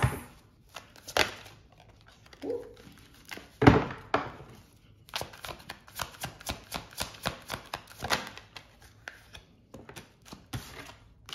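A deck of tarot cards being shuffled by hand: a run of quick card clicks and slaps, several a second, with a couple of louder knocks as the deck is handled.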